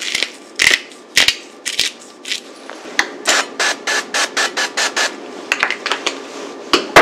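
Pepper mill being twisted over a plate of pasta to grind pepper: a series of short, sharp clicks that runs at about five a second in the middle.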